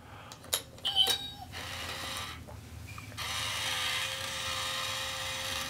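Toy cat coin bank's small motor whirring as the lid opens and the cat reaches out for the coin, after a couple of clicks as the coin is set on the plate. The whir runs briefly, stops, then starts again about three seconds in and runs longer and louder.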